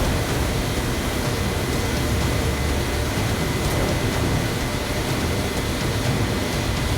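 Steady droning engine noise of an airplane in flight, a low rumble with a faint high whine, from a cartoon's sound effects.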